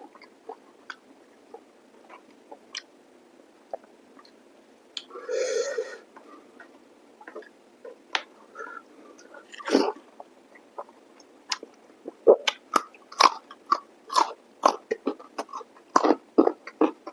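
Close-up mouth sounds of someone eating chicken curry with rice: sparse wet lip and tongue clicks at first, a short rushing breath-like noise about five seconds in, then from about twelve seconds in loud, rapid smacking chews, roughly two or three a second.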